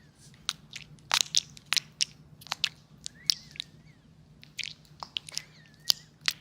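Close-miked crisp crunching and clicking, a quick irregular series of sharp sounds, over a faint steady low hum.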